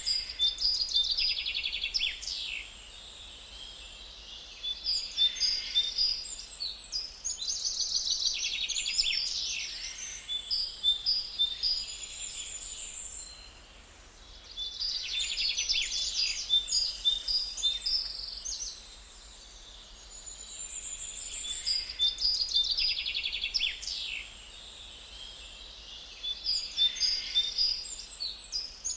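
Small birds chirping and trilling in high-pitched bouts of a few seconds each, separated by short quieter gaps.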